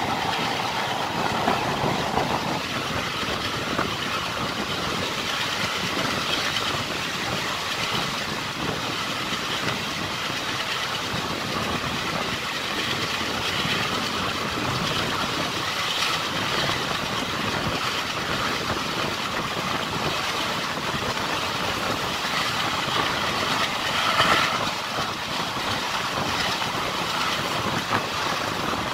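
Indian Railways passenger coach running along the track, heard from an open coach window: a steady rumble and rattle of wheels on rails, with a few sharper knocks, the strongest about 24 seconds in.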